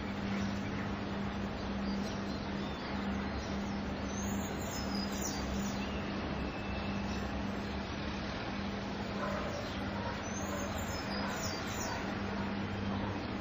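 Steady low hum over a broad, even rumble from a large container ship's engines as it passes at close range. A few faint bird chirps come twice, at about four and about ten seconds in.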